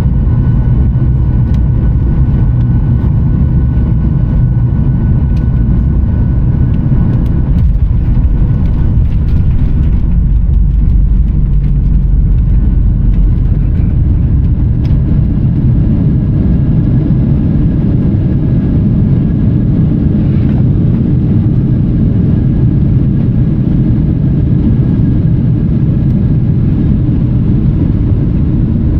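Boeing 737-900ER heard from inside the passenger cabin: a steady low rumble of engines and airflow, with a few faint steady engine tones above it.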